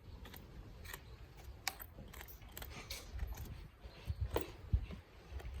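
Faint, scattered clicks and light taps of farrier work at a horse's hoof.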